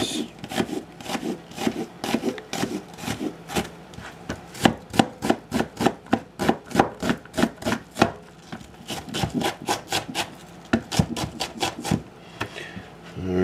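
Chef's knife dicing an onion on a plastic cutting board: quick, even taps of the blade striking the board, about three to four a second, in runs with brief pauses between them.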